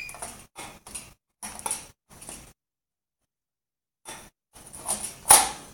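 African grey parrot vocalising in a series of short, noisy bursts: several in the first two and a half seconds, then after a pause a louder run near the end.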